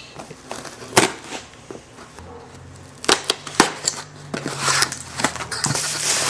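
Packaging of a carburetor rebuild kit being opened by hand: a few sharp clicks and snaps, then plastic rustling and crinkling in the second half.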